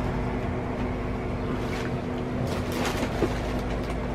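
Steady low machine hum holding a constant pitch, with faint rustling and a light knock of items being handled in the second half.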